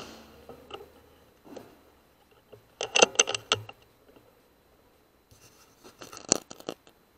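The fading tail of an air rifle shot, then runs of sharp clicks and knocks: a quick burst of about seven in under a second, about three seconds in, and another cluster with one loud click near the end.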